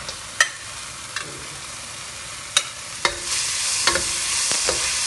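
Metal spatula clinking and scraping against a black iron wok as chicken is slid into it. About three seconds in, a loud sizzle swells up as the chicken hits the hot oil, with the spatula still clinking through it.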